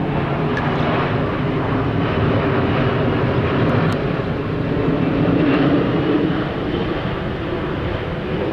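Jet airliner passing overhead: steady engine noise that swells about five seconds in and then eases off.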